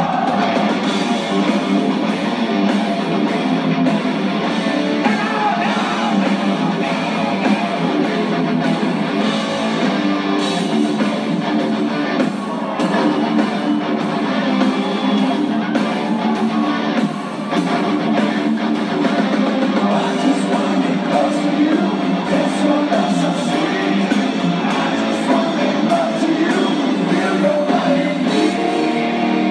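Rock song with electric guitar, drums and singing, playing steadily as background music.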